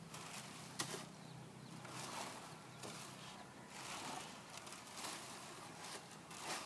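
Faint rustling and scraping strokes of rattan being peeled, coming every second or so, with a sharp click just under a second in.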